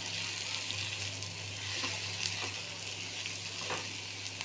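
Chopped capsicum and onion sizzling steadily in hot oil in a kadhai, with scattered clicks and scrapes of a metal spatula stirring them against the pan.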